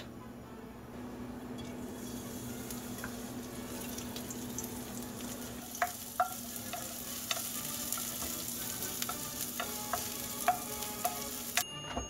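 Food sizzling in oil in a frying pan, a steady hiss that builds over the first couple of seconds. From about halfway through, a stirring utensil knocks against the pan with about a dozen short ringing clicks. The sizzle cuts off suddenly just before the end.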